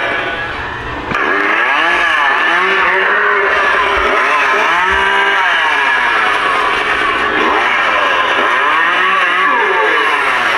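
Recorded chainsaw sound played through the Spirit Halloween Leatherface animatronic's speaker: a small engine revving up and down over and over, each rev rising and falling in pitch about once a second, after a brief dip about a second in.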